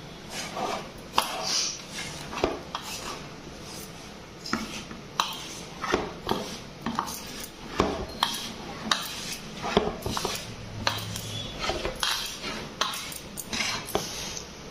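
Hand mixing flour with ground bathua leaf paste in a stainless steel bowl: fingers rubbing and scraping against the steel, with irregular short clinks from the bowl and the glass bangles on the wrist.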